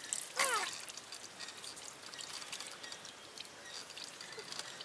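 Faint trickling and dripping water. About half a second in comes one short falling vocal call.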